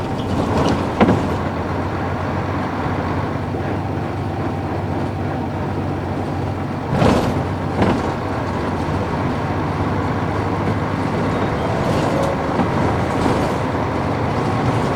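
Nissan Diesel U-UA440HSN city bus with its PF6 diesel engine running steadily on the road, a continuous low engine drone. A few brief sharp noises come about a second in and again around seven and eight seconds in.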